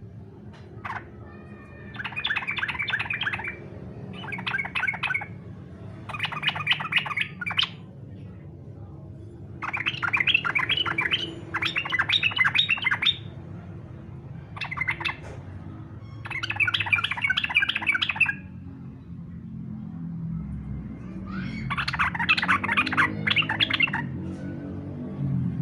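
Yellow-vented bulbul (trucukan) singing in aggressive 'fighter' style: repeated bursts of rapid, harsh chattering notes, each a second or two long, with short pauses between.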